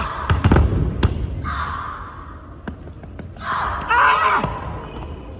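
Bodies thudding onto a wooden gym floor as one Shorinji Kempo competitor throws the other, a cluster of thumps in the first second, echoing in a large hall. Two loud shouts follow, about a second and a half in and near four seconds.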